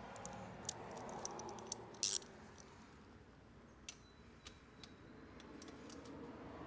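Faint metallic clicks and scrapes of a hand tool tightening down a battery terminal bolt, scattered and irregular, with one louder scrape about two seconds in.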